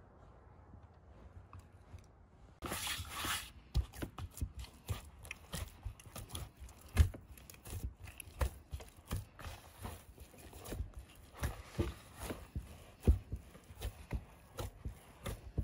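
Dough being kneaded by hand in a plastic bowl, starting about two and a half seconds in: a brief rustle, then irregular soft slaps, squelches and dull thumps as a fist pushes and folds the sticky dough, about one to two a second.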